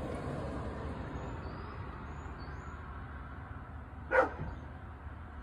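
A single short, loud animal call about four seconds in, over steady low background noise, with a few faint bird chirps earlier on.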